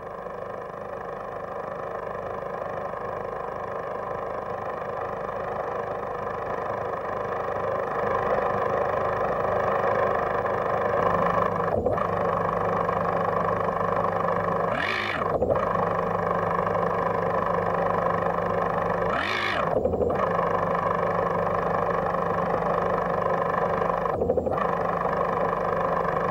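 A sustained drone made of many steady tones that swells over the first several seconds, with a deeper steady tone joining about eleven seconds in. Twice, a brief sweep rises and falls over it, and it cuts out for an instant a few times.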